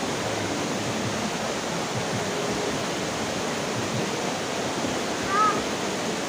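Waterfall rushing steadily. About five seconds in, a short high-pitched call rises and falls briefly over it.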